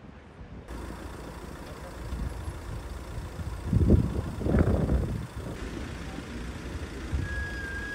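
Street noise with vehicle engines running, a low steady rumble that swells louder for about a second and a half around four seconds in.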